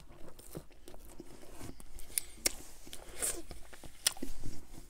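Close-miked chewing of pizza crust dipped in creamy garlic dip: scattered wet mouth clicks and soft crunches. A napkin rubs against the mouth near the end.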